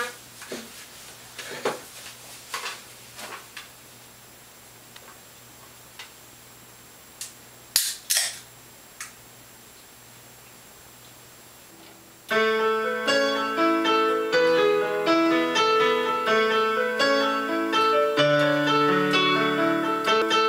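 A few scattered clicks and knocks, then about twelve seconds in an electronic keyboard starts playing chords over a melody, with low bass notes near the end.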